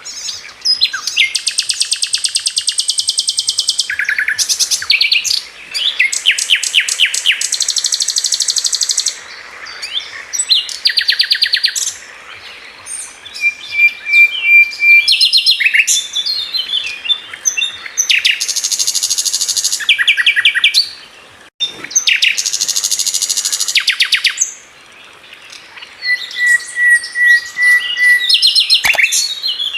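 Songbird singing: rapid trills of high chirps broken by short pauses, with a couple of held, steady whistled notes.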